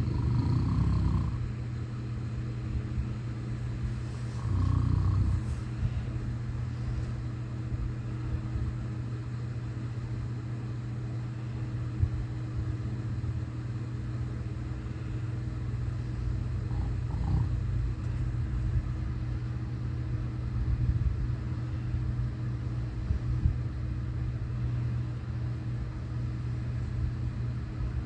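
A sleeping person snoring heavily: two loud rumbling snores at the start and about four seconds in, then softer, irregular snores, over a steady low hum.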